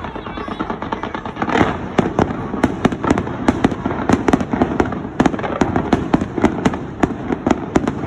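Fireworks display: a rapid, continuous run of sharp cracks and bangs, several a second, over a steady rumble, with one longer burst about a second and a half in.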